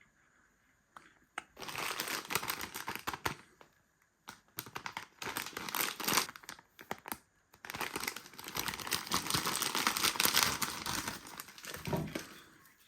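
Crinkling and crumpling, as of packaging being handled, in several long bursts with short pauses between them.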